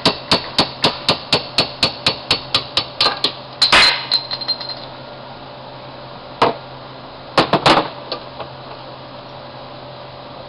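Rapid metal-on-metal tapping, about four sharp taps a second for roughly three seconds, as an ice pick is worked against a die grinder's shaft to knock it free. A louder ringing clink follows about four seconds in, then a single knock and a short burst of taps near the end.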